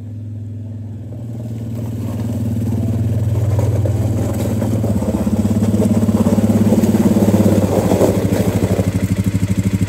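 Suzuki KingQuad ATV engine running at low speed, growing louder over the first three seconds and then holding steady with a fast, even pulse.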